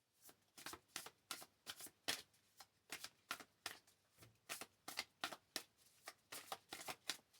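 A deck of oracle cards being flicked through by hand, a run of short crisp card snaps about three a second, as the deck is searched for one card.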